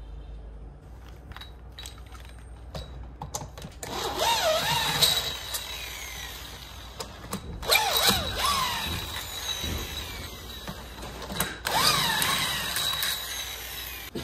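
Corded electric drill run in three bursts of a second or two each, its motor speeding up and slowing with the trigger. A few light knocks come before the first burst.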